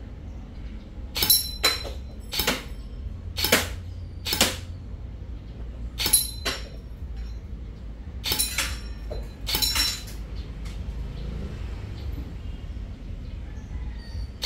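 An airsoft rifle is fired in single shots while its scope is being zeroed. There are about a dozen sharp reports over the first ten seconds, irregularly spaced and some in quick pairs, then a steady low background rumble.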